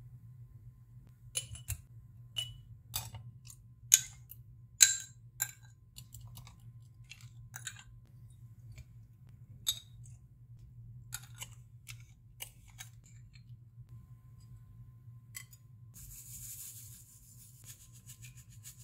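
A metal spoon clinking and scraping against glass jars as fruit and syrup are spooned in, with the two sharpest clinks about four and five seconds in. Near the end, sugar poured from a bag hisses onto the top of a jar. A steady low hum runs underneath.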